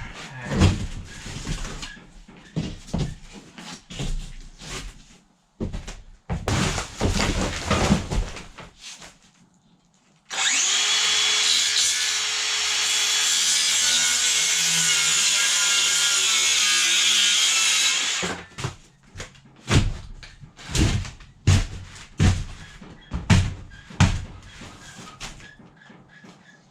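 A power tool runs steadily for about eight seconds near the middle, between stretches of irregular knocks and clatter from work with boards and tools.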